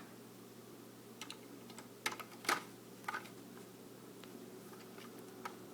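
A few light, scattered clicks of plastic LEGO parts being handled and moved, over a faint steady hum.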